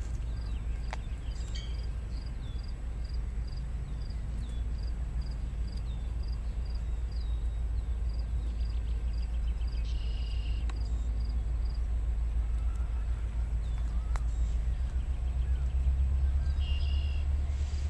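Low rumble of an approaching diesel freight train, slowly growing louder, with a high chirp repeating about twice a second and a few bird calls over it.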